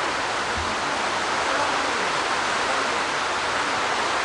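Heavy rain falling on open backwater, a steady, even hiss.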